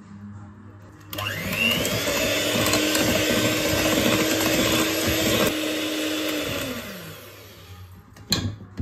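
Electric hand mixer switched on about a second in, its motor whirring up to speed as the beaters whisk cake batter, running steadily for several seconds, then slowing and winding down to a stop. A single sharp knock near the end.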